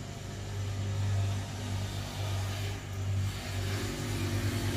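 Diesel locomotive engine running steadily at low revs, a low hum that wavers slightly.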